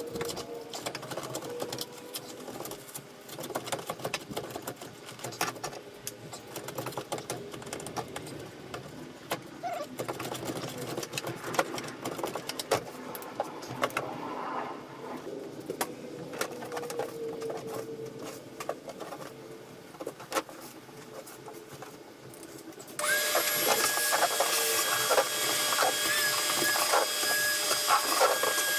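Cured expanding foam being scraped and broken out of a fibreglass boat compartment: a long run of small scratching, crumbling and clicking sounds. Near the end a shop vacuum starts with a loud, steady whine and cuts off suddenly.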